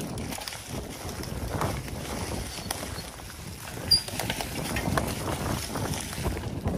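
Mountain bike rolling over a leaf-covered dirt trail: tyre noise over dry leaves with the bike rattling and knocking over bumps. About four seconds in, a brief high squeal from the metallic brake pads, which squeal readily.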